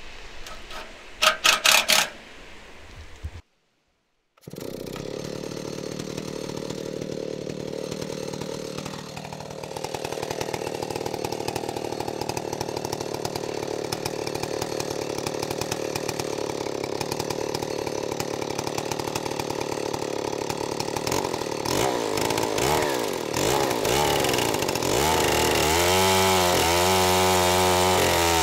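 A quick run of loud knocks about a second in, then, after a brief gap, a chainsaw in an Alaskan chainsaw mill running steadily as it rips along a driftwood log. Near the end the engine's pitch wavers up and down under the load of the cut.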